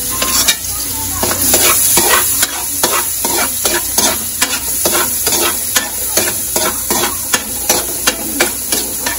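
Diced carrots sautéing in oil in a metal wok: a steady sizzle under repeated scrapes and clinks of a metal spatula against the pan, about two or three a second.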